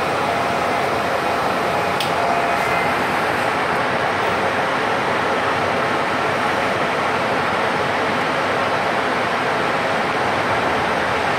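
Steady cabin noise inside a public bus on the move: engine, road and air-conditioning noise together, with a single click about two seconds in.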